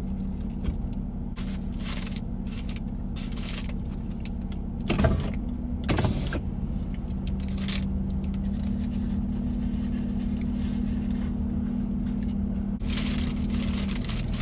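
Steady hum of a parked car idling, heard from inside the cabin. A paper sandwich wrapper rustles and crinkles now and then, loudest in two bursts about five and six seconds in.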